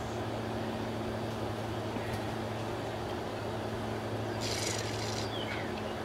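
A steady low hum with a few short descending bird chirps near the end, and a brief high hiss about four and a half seconds in.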